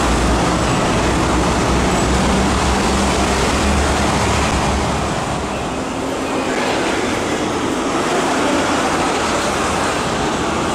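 MTR Kwun Tong Line electric trains running on the track. A steady low rumble of wheels and traction motors with a steady hum fills the first half. About halfway through the sound changes to a lighter running noise with a higher steady hum.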